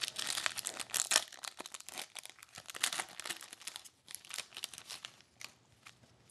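Foil wrapper of a hockey trading card pack crinkling and tearing as it is opened, a dense run of crackles that thins out near the end.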